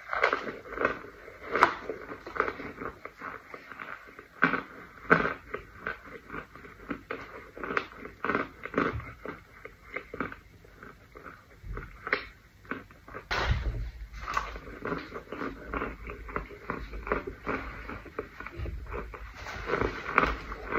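Pressed scented powder crumbling and crunching in a gloved hand, a quick irregular run of crisp crackles. A low rumble comes in about two-thirds of the way through.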